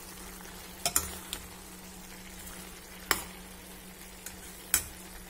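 A steel spoon stirring pumpkin and grated coconut in a stainless steel pan on the stove, with several sharp clinks of the spoon against the pan over soft frying and a steady low hum.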